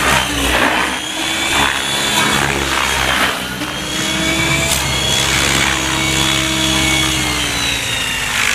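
Radio-controlled Gaui X7 helicopter flying, its rotor and motor whine sliding up and down in pitch as it manoeuvres.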